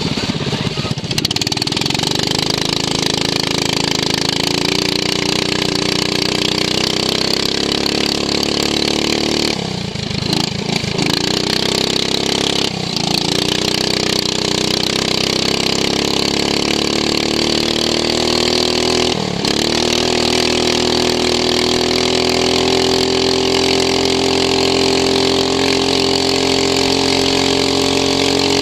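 Racing lawn mower engine running hard on the track, heard from on board. The revs drop briefly a few times and then climb steadily again as it accelerates.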